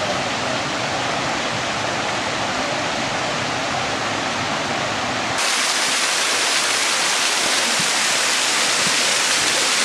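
Steady rush of running water. About five seconds in it abruptly turns thinner and hissier, as at a cut to another shot.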